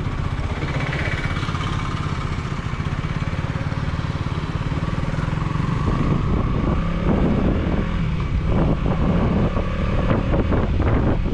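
Motorcycle engine pulling away and riding, heard from the rider's position, with a tone slowly rising in pitch over the first few seconds. About halfway through, wind starts buffeting the microphone in gusts over the engine.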